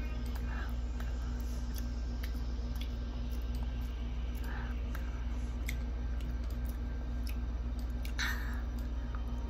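Eating sounds: a metal fork clicking and scraping in a paper takeout box of spaghetti, with chewing, a few short scrapes standing out. A steady low hum runs underneath.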